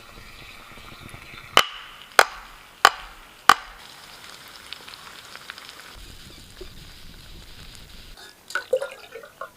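Four sharp knocks, evenly spaced a little over half a second apart, over a steady hiss, followed near the end by a short run of smaller clicks and knocks.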